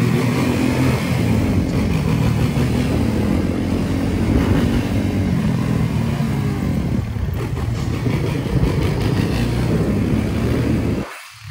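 Suzuki sport quad's engine running under throttle as the rider holds it up in a wheelie, the revs wavering slightly with small throttle changes. The sound falls away sharply near the end.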